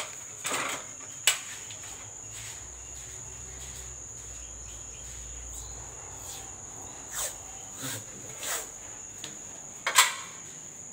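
A cricket's steady high trill runs throughout, under scattered rustles and clicks of handling. There is a sharp click about a second in, and the loudest knock comes near the end.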